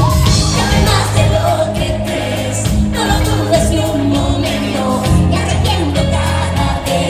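Live pop song: a band playing with a steady bass line under a lead vocal, which the crowd may be singing along with.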